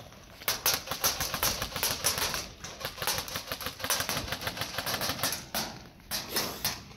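Airsoft gunfire: a rapid, irregular run of sharp clicks and taps from airsoft rifles firing and BBs striking the barricades. It starts about half a second in and dies away about six seconds in.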